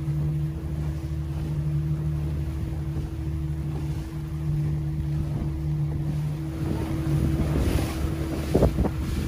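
A yacht's engine running with a steady low hum, with wind on the microphone and water noise around the hull. Near the end a gust grows louder and a few short knocks come through.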